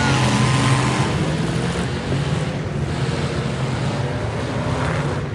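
Demolition derby cars' engines running and revving together in a loud, steady din.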